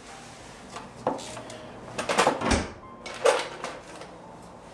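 Hand tools and wire being handled at a workbench: a few short clicks and scrapes about a second in, a cluster around two seconds in, and two more past three seconds.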